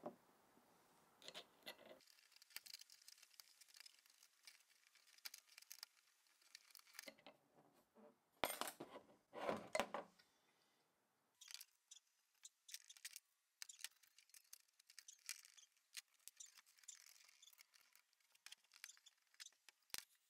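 Small steel parts of a disassembled 1950s ratchet being handled: faint clicks and clinks of the pawl, head and screws, with louder clattering about eight to ten seconds in.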